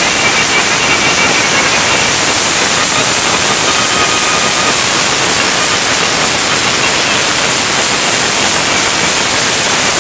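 Loud, steady din of a dense crowd, heard as an even static-like hiss with no clear music or voices standing out.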